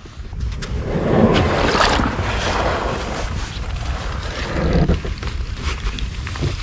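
A loaded SeaBird Victory HV sea kayak being slid off a wooden jetty into the water, its hull swishing and scraping, loudest a second or two in with a second, smaller surge near the end. Wind rumbles on the microphone underneath.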